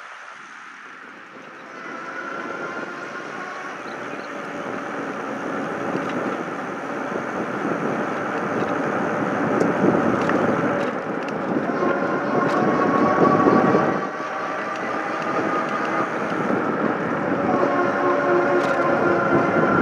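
Riding a Lectric XP electric folding bike down a paved road: wind rushes over the microphone with tyre noise, growing louder as the ride goes on. A thin whine slowly wavers in pitch throughout, and a few light clicks come near the middle.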